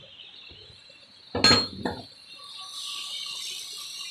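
Two metallic clinks about a second and a half in, the first with a brief high ring, as a car alternator's metal housing and parts knock while it is handled; a faint steady hiss follows.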